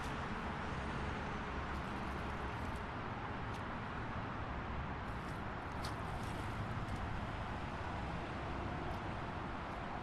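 Steady highway traffic: a continuous wash of car tyres and engines with a low rumble, and a few faint, brief high ticks about a third and two-thirds of the way through.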